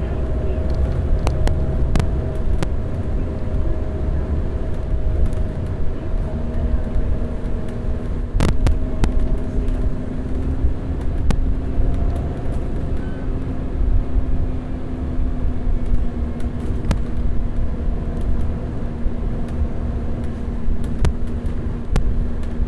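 Double-decker bus's diesel engine running under way, a heavy low rumble. A steady whine comes in about six seconds in, with scattered rattles and clicks and one sharper knock just past the eight-second mark.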